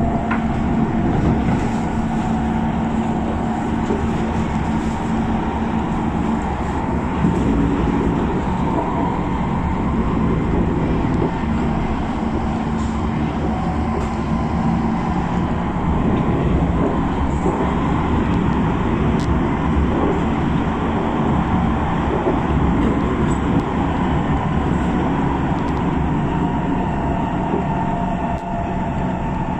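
Inside an SMRT C151 metro train running along the East-West Line: a steady rumble of wheels on rail with humming motor tones through the car. A low hum drops away about a third of the way through while the running noise carries on.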